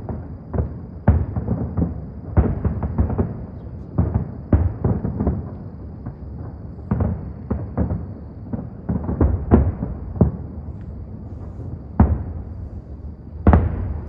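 New Year's fireworks shells bursting in a rapid, irregular barrage of deep bangs, each trailing off briefly, with the loudest bangs near the end.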